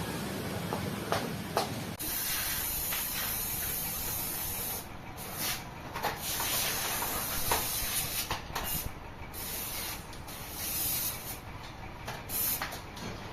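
A strong hissing spray that starts suddenly about two seconds in and cuts out briefly several times, over a low workshop rumble with a few clicks before it starts.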